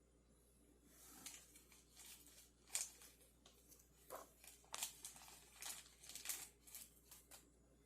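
Faint, irregular crinkling and rustling of plastic packaging being handled and torn open, a surprise blind bag being unwrapped.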